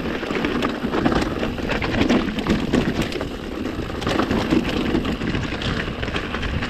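Mountain bike rolling downhill over rocky dirt singletrack: continuous tyre crunch on stones and soil, with many quick clicks and rattles from the bike.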